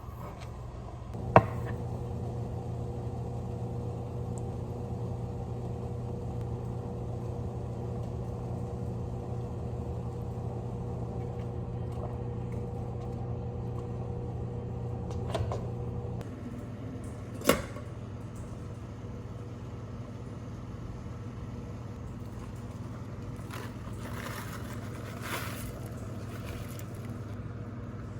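Microwave oven running with a steady low hum that starts with a click and stops after about fifteen seconds, followed by a single sharp click.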